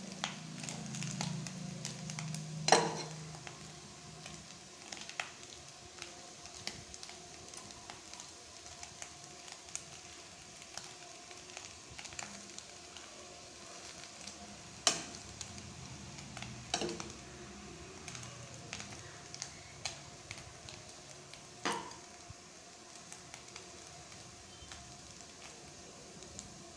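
Crumbled fish roe stir-fry frying softly in oil in a nonstick kadai while a steel spoon stirs it. A few sharp clicks and scrapes of the spoon against the pan stand out, the loudest about three seconds in.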